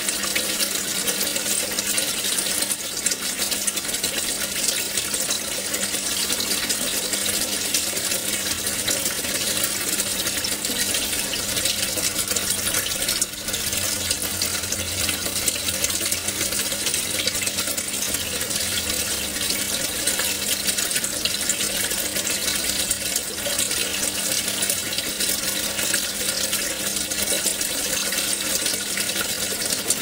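Aquarium water falling in from the filter return and splashing into the tank: a steady trickling and bubbling that runs on without a break.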